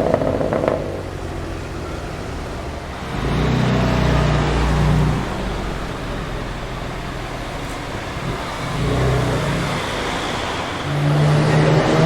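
BMW M4 F82's twin-turbo inline-six through an Akrapovic exhaust, running at low revs amid street traffic. Its low rumble swells for about two seconds around three seconds in, briefly again later, and once more near the end.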